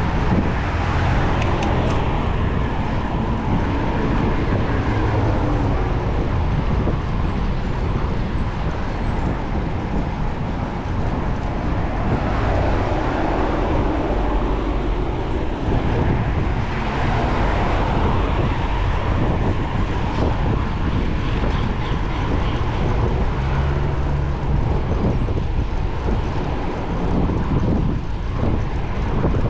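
Wind rumbling on the microphone of a moving bicycle rider, with car traffic passing in the lane alongside.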